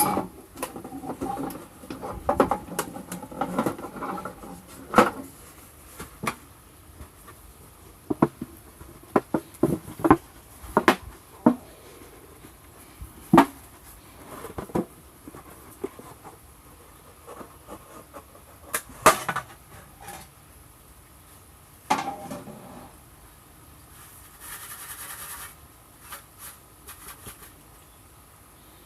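Irregular light knocks, clicks and clinks of things being handled, busiest in the first few seconds, with a short rustle near the end.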